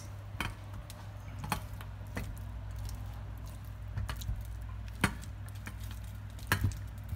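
Silicone spatula stirring chunks of chocolate and butter in a glass bowl set over a pot of hot water. About six sharp clicks of spatula and glass knocking, spread through, over a steady low hum.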